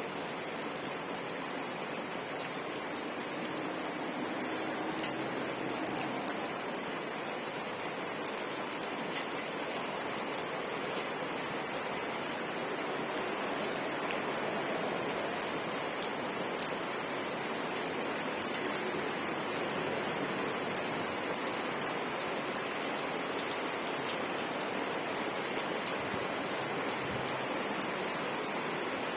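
Steady rain falling, with scattered sharp drip ticks over an even hiss.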